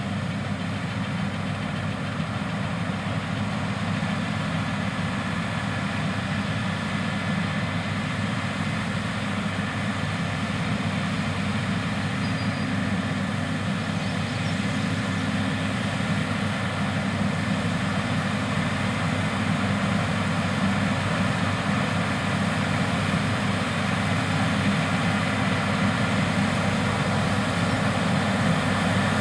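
New Holland CR8090 twin-rotor combines running steadily while harvesting wheat, a dense machine drone that grows gradually louder.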